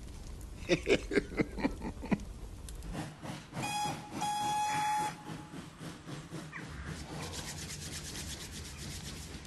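A quick run of short musical notes, then a steam locomotive's whistle sounding twice, a short blast and a longer one, followed by a steady hiss of steam.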